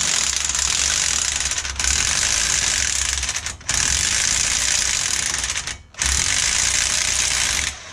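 Corded electric impact wrench hammering on an ATV's rear axle nut, trying to break it loose. It runs in three long bursts with short breaks between them and stops just before the end.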